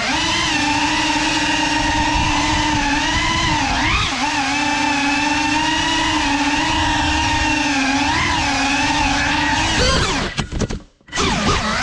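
Whine of a GEPRC CineLog35 cinewhoop's four brushless motors and ducted propellers in fast flight, a steady multi-tone whine whose pitch rises and dips with the throttle. Near the end it falls away, cuts out for an instant, then spins quickly back up.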